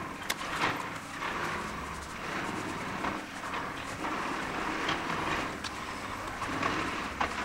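Long-reach demolition excavator with a crusher attachment breaking up a reinforced-concrete building, sped up about four times: a continuous clattering hiss of machinery and falling debris with irregular sharp cracks of concrete breaking.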